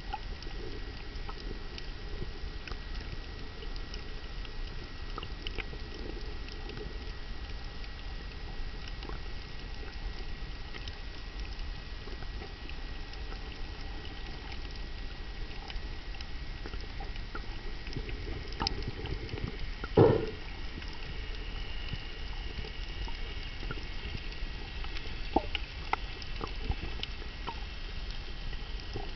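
Underwater reef ambience picked up by a camera in its waterproof housing: a steady low rumble and hiss with scattered faint clicks and crackles and a thin steady high whine, and one sharper knock about two-thirds of the way through.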